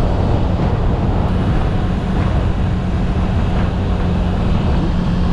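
Suzuki Gixxer 155's single-cylinder engine running steadily at road speed, a constant low drone under a steady rush of wind and tyre noise.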